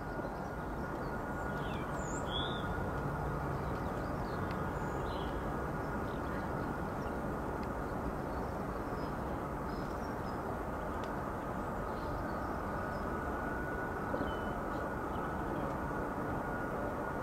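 Jet aircraft engines running steadily: a continuous rumble with a faint high whine held on one pitch. A few faint bird chirps come through above it.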